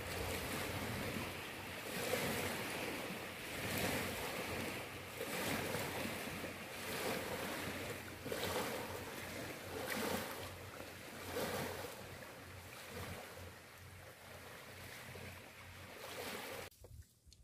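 Small river waves washing and breaking against a muddy bank, swelling in repeated surges about every second and a half. The sound cuts off abruptly shortly before the end.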